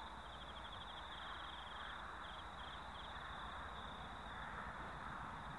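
Insects chirping in fast, high trills that start and stop, over a faint steady outdoor noise with a low rumble.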